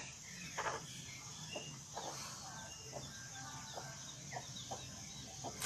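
Chickens clucking faintly, in short scattered calls, with a few small bird chirps among them.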